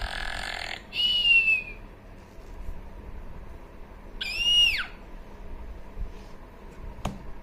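A children's sound book's small speaker playing a cartoon snore that ends in a falling whistle (Goldilocks asleep), then, about four seconds in, a short rising-and-falling girl's scream (Goldilocks's fright).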